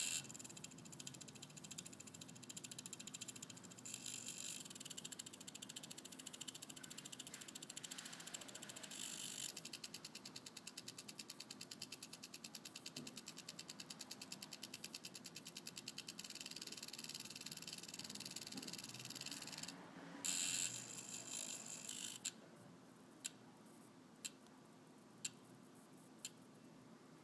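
Devon Tread 1 watch's motor-driven time belts running: a very fast, fine, even ratcheting clicking, louder for a moment about twenty seconds in. Near the end it gives way to single sharp ticks about once a second.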